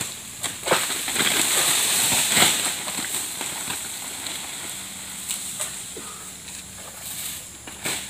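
Long-poled harvesting sickle working in the crown of a tall oil palm: fronds rustle and the blade scrapes and snaps against them in short sharp cracks, swelling to a loud rustle about two and a half seconds in.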